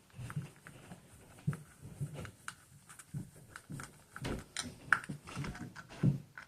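Irregular small clicks and light knocks from a screwdriver driving the small screws of a plastic spur-gear cover on an RC car, with the parts being handled.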